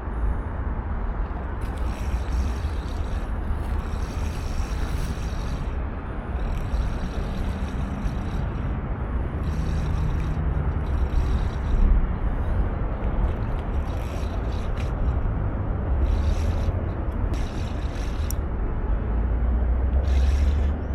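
Wind buffeting the microphone with a steady low rumble, and through it short, repeated bursts of a Shimano Vanford 2000 spinning reel being wound in while a hooked fish is fought.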